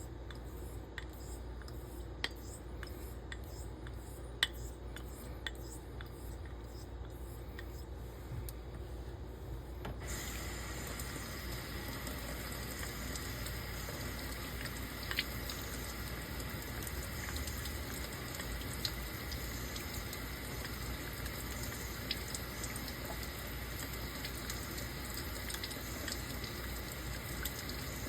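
Light, scattered clicks of a straight razor worked on a wet coticule honing stone. About ten seconds in, a tap starts running water steadily.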